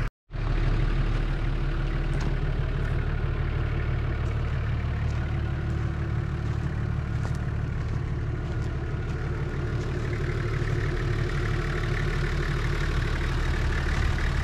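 Nissan GU Patrol's TD42 turbo-diesel straight-six engine running steadily at idle, with no revving.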